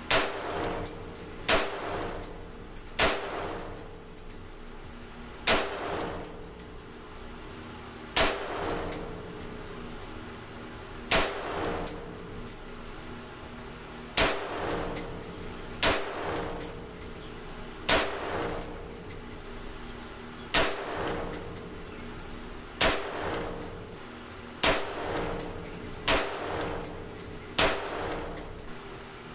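Anderson Frontline AR-15 pistol with an 11.5-inch barrel firing 5.56 rounds: about fifteen deliberate single shots, one every one and a half to three seconds, each with a short ringing tail.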